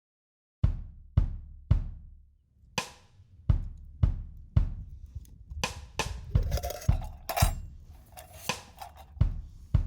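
Background music starting abruptly with a drum-kit beat: kick and snare hits at a steady tempo of about two a second, busier in the second half.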